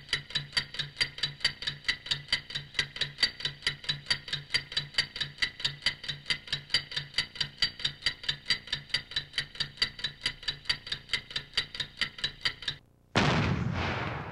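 Even, clock-like ticking at about four and a half ticks a second, which stops nearly 13 seconds in. After a short gap comes a loud rushing boom that fades.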